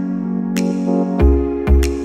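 Background music: sustained electronic keyboard chords, joined just over a second in by a deep bass note and sharp percussive hits.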